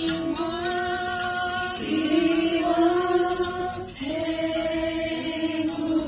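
Hospital staff chanting a mantra together in three long held notes, each nearly two seconds and sliding up slightly at its start.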